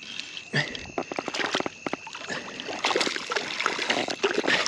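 Water splashing and sloshing at a kayak, with a string of sharp clicks and knocks, as a hooked fish is brought in.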